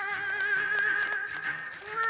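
A high singing voice holds one long, wavering note, breaking off shortly before the end.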